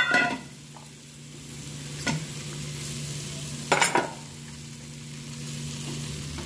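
Paneer cubes sizzling steadily as they fry in melted butter on a tawa, with sharp clacks of a wooden spatula against the pan near the start, about two seconds in and again about four seconds in.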